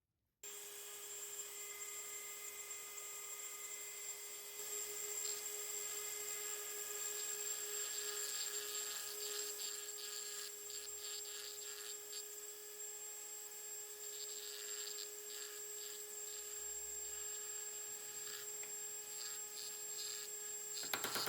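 A small electric power tool running steadily with a constant whine, starting suddenly about half a second in, with scratchy scraping coming and going as it works against metal.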